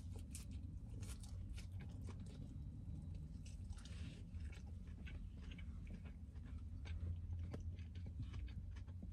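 Faint close-up biting and chewing of a chicken club sandwich on toasted sourdough with lettuce and bacon: soft crunches and mouth clicks, with a fresh bite about four seconds in.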